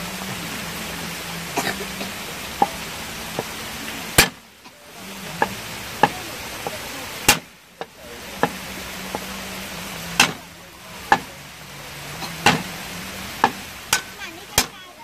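Cleaver chopping red chilies on a round wooden chopping board: a string of irregularly spaced sharp knocks, about fifteen in all, over a steady background hiss.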